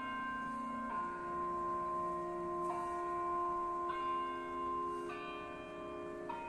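Bell chimes playing a slow melody in held, ringing notes, a new note sounding about every second or so.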